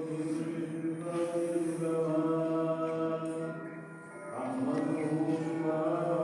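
A single voice chanting in long, held melodic notes, with a breath pause about four seconds in.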